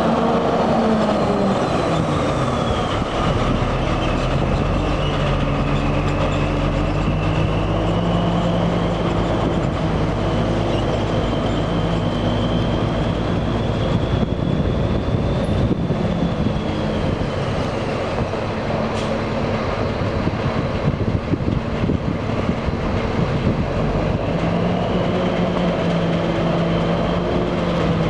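Diesel engine of a 1991 International day-cab truck tractor driving off under power, its pitch rising and falling several times as it pulls away. A thin high whine wavers above the engine.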